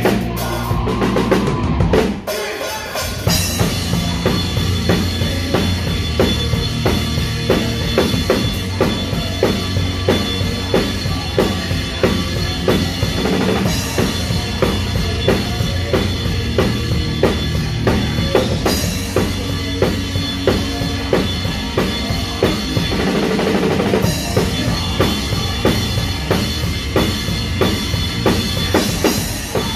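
Live rock band playing, heard close up at the drum kit: kick drum, snare and cymbals in a driving beat over bass guitar. About two seconds in the band stops briefly, then comes back in.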